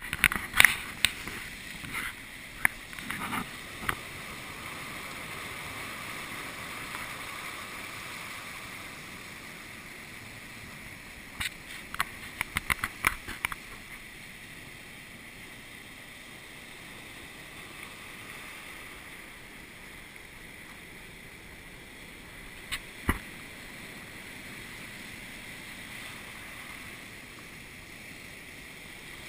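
Ocean surf washing over a rock ledge, a steady rushing hiss heard through a camera's underwater housing, which makes it thin and tinny. Sharp clicks and knocks come in a cluster in the first few seconds, again a little before halfway, and once more about three-quarters of the way through.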